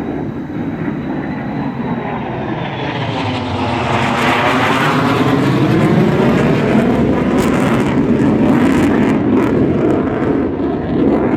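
F-35 Lightning II fighter jet, a single turbofan engine, passing low overhead. Loud jet noise builds over the first four seconds with a swooshing sweep that falls and then rises as the jet goes over, and stays loud with some crackle.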